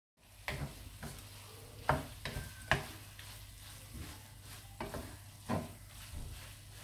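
Wooden spatula scraping and knocking against a non-stick frying pan as a thick chili-peanut paste is stirred, with the paste frying and sizzling steadily underneath. The scrapes come irregularly, the sharpest about two seconds in.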